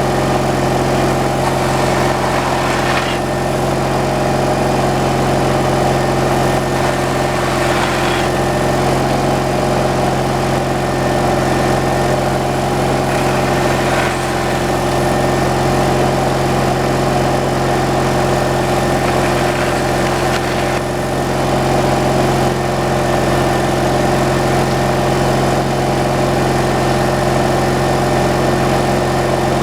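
Gasoline engine of a homemade slab-wood kindling cutter running at a steady speed, with a few faint knocks over it.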